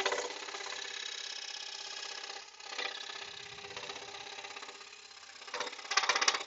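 Axminster scroll saw running, its blade stroking steadily up and down as it cuts through a board. Louder noisy bursts come near the end.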